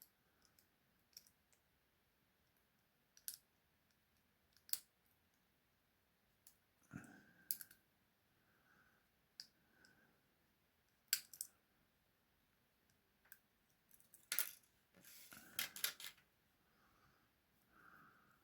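Faint, sparse metallic clicks and short scrapes of two wire picks working inside a British two-lever padlock's keyway as the levers are lifted, with a denser run of scraping clicks about three-quarters of the way through.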